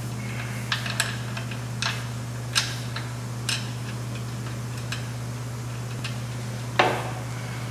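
Irregular light metallic clicks of small bolts and washers being handled and started by hand into a transplanter's gearbox mounting, with a heavier clink near the end. A steady low hum runs underneath.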